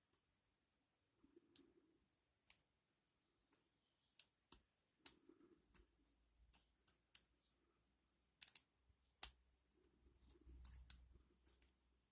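Faint, irregular metallic clicks and ticks of a pick and tension wrench working the pin stack of an ASSA Ruko 2 padlock during single-pin picking, the pick tapping and setting pins one at a time. About twenty sharp clicks come at uneven spacing, bunching up in the last few seconds.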